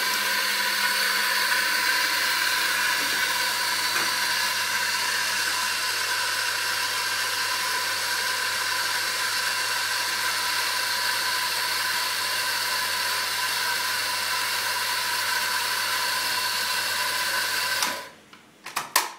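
Dosage-chamber coffee grinder's motor running steadily as it grinds beans into the doser chamber, then switching off suddenly about eighteen seconds in, followed by a few sharp clicks.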